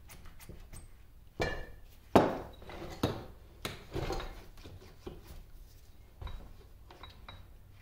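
Heavy cast-iron lathe apron of a 1950 LeBlond Regal 17-inch lathe clunking and knocking against a wooden workbench as it is turned over and set down: a string of irregular knocks with a brief metallic ring, the loudest about two seconds in.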